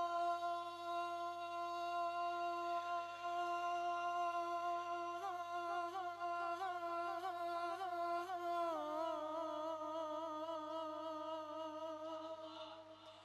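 A male Shia elegy reciter holding one long wordless sung note, hummed or on a vowel, with small wavering ornaments in the middle. It steps down slightly in pitch a little over halfway and fades away near the end.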